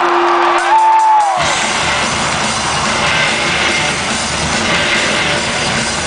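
Live rock band in an arena: over crowd noise, held keyboard-like notes and one rising-then-falling whoop, then about a second and a half in the full band with drums and guitar comes in suddenly and plays on loud.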